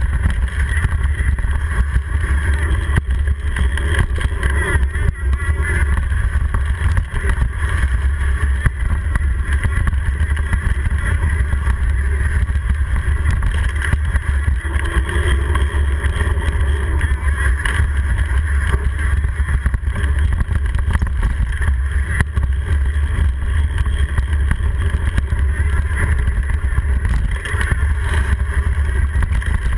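Mountain bike riding fast down a dirt singletrack, heard through a GoPro: a steady deep rumble of wind and trail vibration on the camera, with a constant stream of small knocks and rattles as the bike runs over the bumps.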